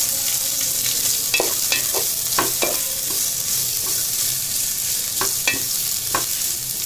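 Shredded cabbage, carrot, onion and green chillies sizzling in hot oil in a metal pan as they are stir-fried. A spoon scrapes and knocks against the pan now and then, in a cluster about a second and a half in and again past the five-second mark.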